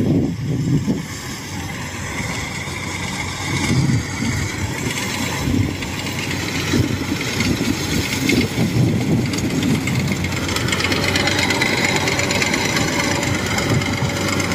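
Kubota crawler combine harvester running while it cuts rice: the engine and threshing machinery make a steady mechanical din that grows louder as the machine comes close, with a steady whine in the second half.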